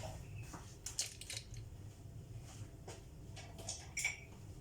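Quiet kitchen handling sounds: a few light clicks and taps of utensils and containers at the counter, spaced irregularly over a faint background.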